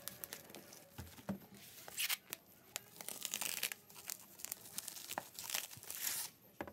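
Corrugated cardboard shipping box being ripped open by hand, then the bubble-wrap packing crinkling and rustling under the hands, in irregular bursts of tearing with small clicks.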